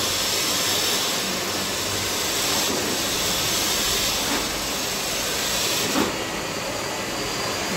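Steady hissing and whirring from the rain-sensing wiper rig: the 12 V DC wiper motor sweeps the blade while water is poured onto the rain sensor. The hiss eases a little about six seconds in.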